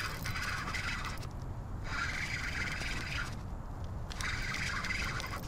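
Fishing reel cranked in spurts during a retrieve: a whirring scrape lasting about a second and a half, three times with short pauses between, over a low steady rumble of wind.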